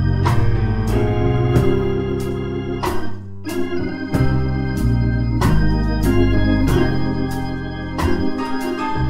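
Organ music: sustained chords over a strong bass line, with sharp percussive accents every half second to a second.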